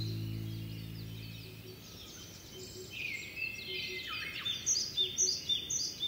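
Many small birds chirping in a dense chorus of short, quick high calls, growing louder and busier about three seconds in. A held low music chord fades out during the first second or two.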